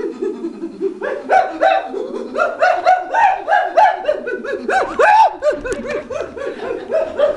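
A man imitating a monkey with his voice: a quick string of short, high calls that rise and fall, about three a second, starting about a second in after a lower chatter.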